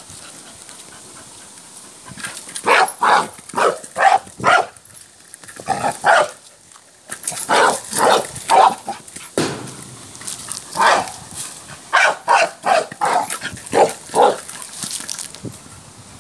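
Staffordshire bull terrier barking in quick runs of short, sharp barks, starting about two seconds in, with brief pauses between the runs.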